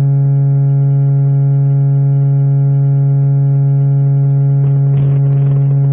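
A steady, unchanging low droning tone, one held pitch with many overtones, with a short burst of noise about five seconds in.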